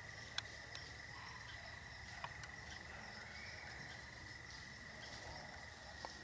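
Crickets trilling steadily at night, one continuous high-pitched trill with a fainter, higher one above it. A few soft clicks come through, the sharpest within the first half second.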